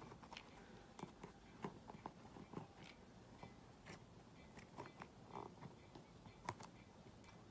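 Faint, irregular small clicks and ticks from a hot glue gun being worked around the edge of foil-covered craft pieces, over near silence.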